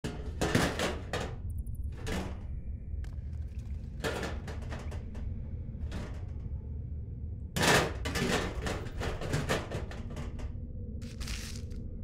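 A steady low hum under repeated short bursts of rustling and clattering noise, the loudest just under a second in and at about eight seconds.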